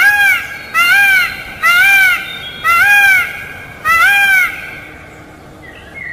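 Peacock calling: a run of five short calls about a second apart, each rising then falling in pitch, followed by a pause near the end.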